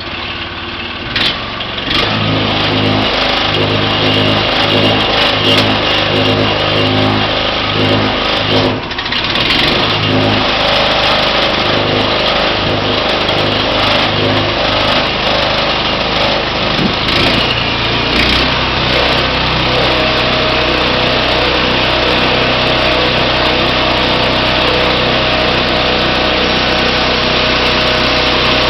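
Small engine of a portable band sawmill running, its note changing and settling into a steadier run about eighteen seconds in.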